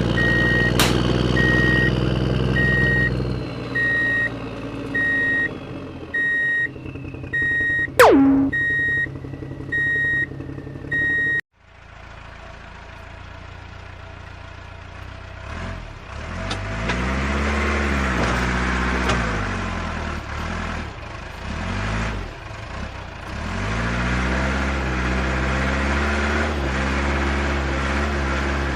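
Engine sound of a radio-controlled construction truck running, with reversing beeps about once a second and a sharp falling whistle partway through. After a sudden cut a little before halfway, the engine sound revs up and falls back several times.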